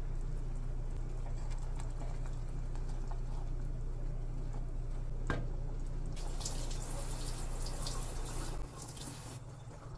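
Curry gravy bubbling in a pot on the stove as a spoon stirs it, with one sharp knock of the spoon about halfway through and a stretch of hissing, crackling bubbling after it. A steady low hum runs underneath and drops away near the end.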